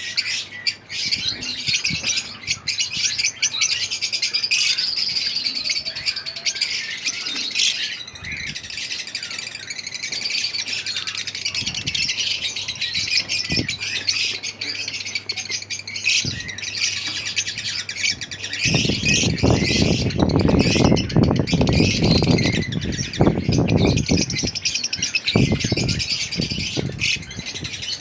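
Many lovebirds chirping and chattering without pause in high, shrill calls. About two-thirds of the way in, a louder low rustling noise joins for about eight seconds.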